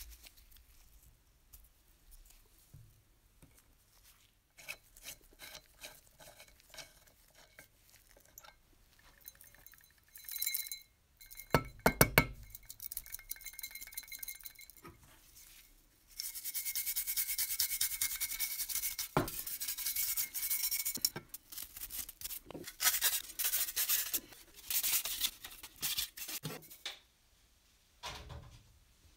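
Rusty metal parts of an antique toy steam engine are handled and worked with pliers: scattered clinks and scrapes, with a few loud knocks about twelve seconds in. In the second half a sandblaster hisses in one long blast of about five seconds, then in several shorter bursts.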